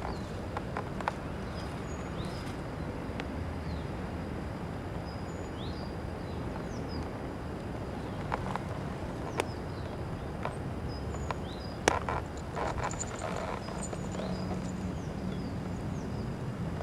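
Woodland ambience: short, high bird chirps scattered throughout over a steady low rumble, with a few crackles and rustles of dry leaves, the loudest a sharp crack about twelve seconds in.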